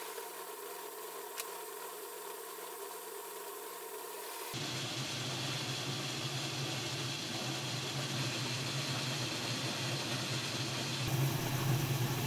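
Homemade Gingery metal lathe running steadily, its electric motor and belt drive humming as the spindle turns. The tone of the hum changes abruptly about four and a half seconds in and again near the end.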